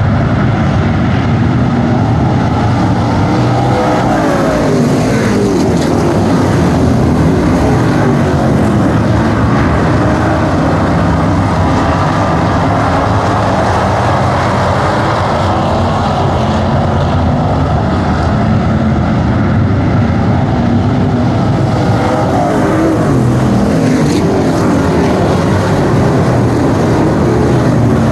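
A pack of Street Stock dirt-track race cars running hard around the oval, many engines overlapping loudly. The engine notes rise and fall as cars come off the turns and pass.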